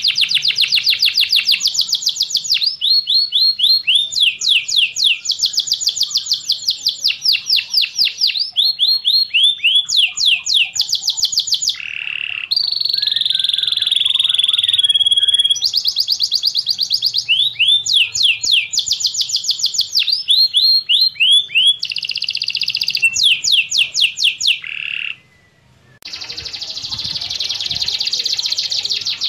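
Domestic canary singing: long fast trills of rapidly repeated sweeping notes, one trill giving way to the next every second or two, with a short pause near the end.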